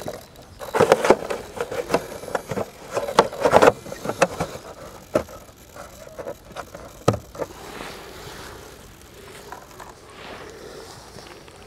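Handling noise as the Align T-REX 600 helicopter's canopy is fitted: a quick run of clicks, knocks and scraping in the first few seconds, one more knock about seven seconds in, then quieter rustling. No motor is running.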